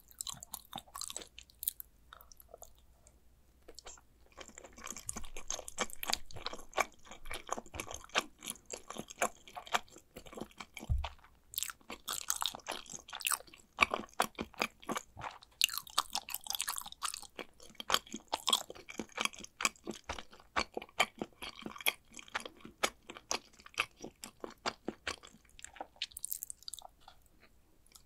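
A person chewing macaroni and cheese close to the microphone, with a dense run of quick, sharp mouth clicks. It eases off briefly twice, and there is one low thump about eleven seconds in.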